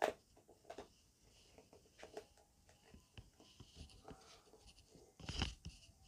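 Hands handling a boxed film set and its cases: scattered light taps, scrapes and rustles, with a sharp knock at the start and a louder clunk about five seconds in.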